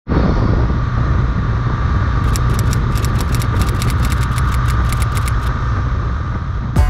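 Motorcycle engine running at a steady cruising speed, with wind and road noise rushing past the bike-mounted microphone.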